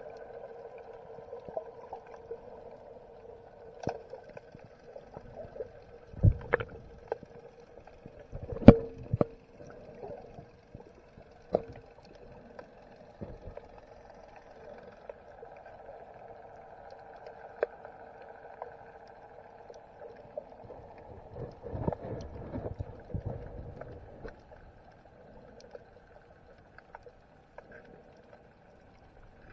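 Underwater sound heard through a submerged camera: a steady, muffled hum with scattered clicks and knocks. The loudest is a sharp knock about nine seconds in.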